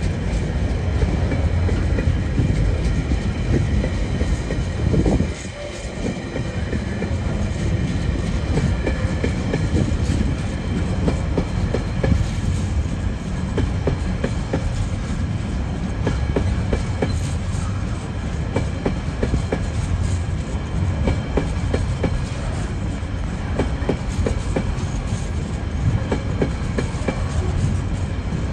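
TasRail container freight train's wagons rolling past: a steady heavy rumble with frequent wheel clicks. The level dips briefly about five seconds in.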